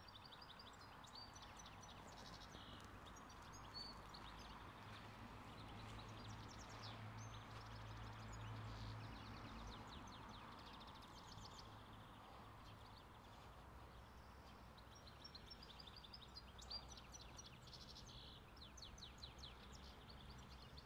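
Near silence outdoors: faint birds chirping in quick repeated runs of high notes, coming and going in clusters, over a low steady hum.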